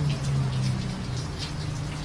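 Rain falling on a city street, a steady patter with individual drops hitting close by, over a low steady hum.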